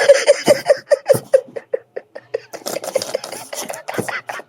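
Whoopee cushion letting out its air in a string of short, raspy, fart-like pulses, about five a second, that fade out about two seconds in. Scattered short scratchy noises follow.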